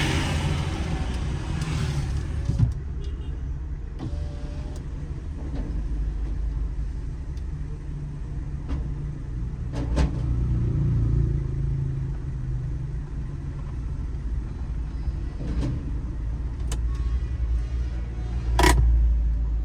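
Vehicle engine rumbling steadily in traffic, with a few sharp knocks or clicks scattered through it, the loudest near the end.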